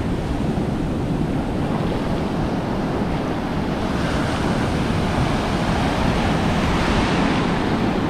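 Ocean surf breaking and washing through the shallows in a steady rush that grows a little brighter about halfway through, with wind rumbling on the microphone.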